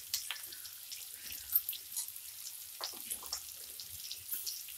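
Onions and slit green chillies frying in hot oil in a kadai: a steady sizzle with scattered small pops and crackles.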